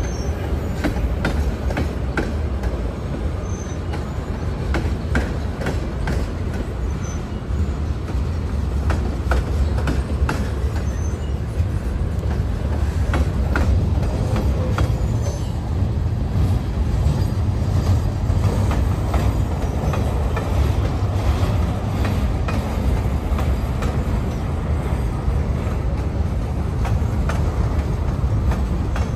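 Freight train cars rolling past: a steady low rumble of steel wheels on rail with frequent clicks and clunks as tank cars, covered hoppers and boxcars go by.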